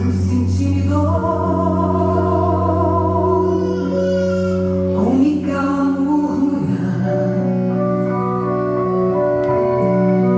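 Gospel song: a woman singing with vibrato over long held backing chords.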